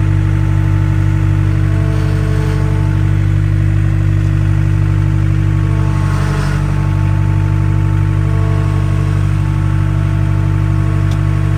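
Skid steer engine running loudly and steadily at a constant speed.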